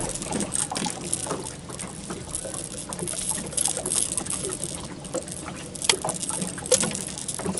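Scattered light knocks and patters as a freshly landed blue catfish is handled on a lip grip aboard a boat, with water dripping off it.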